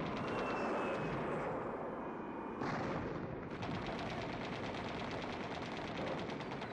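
Rapid machine-gun fire, many shots a second in long runs, over a steady rumble, with a louder bang about two and a half seconds in and a thin, slightly falling whistle early on.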